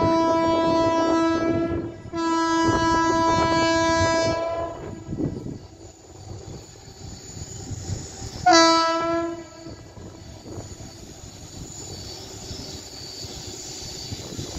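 Horn of an approaching express train: two long steady blasts back to back, then a shorter blast about eight and a half seconds in. After the horn, the train's running noise grows as it draws nearer.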